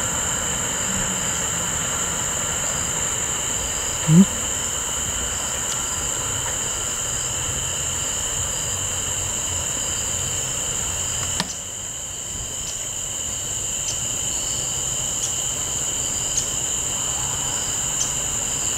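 Steady high-pitched chorus of crickets and other insects, over the low rumble of a diesel locomotive. A short rising sound stands out about four seconds in.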